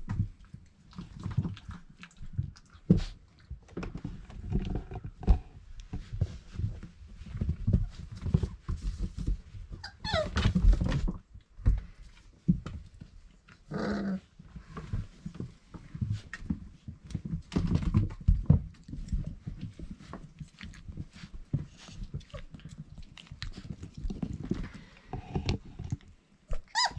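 Four-week-old Irish Setter puppies play-fighting: steady scuffling and bumping on the bedding, with small puppy growls and a few high, wavering yelping whines, the clearest about ten seconds in.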